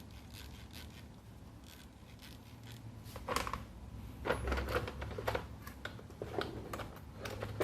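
Parts of a mini rotary tool kit being handled: scattered light clicks and rustles of small plastic parts and packaging, busier from about halfway through.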